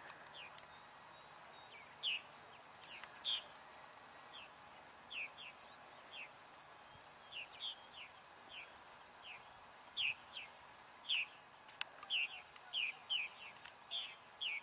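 Field ambience: small birds give short, downward-sliding chirps at irregular intervals, over a faint, high, steadily pulsing insect trill.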